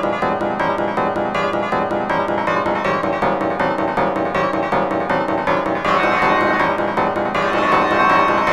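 A jarring chord sound effect on a piano-like keyboard, looped and stuttered so that the chord retriggers several times a second in a dense, continuous wash.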